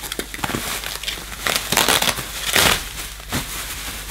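Bubble-wrap packaging crinkling and crackling as it is pulled open by hand, in irregular crackles that are loudest around the middle.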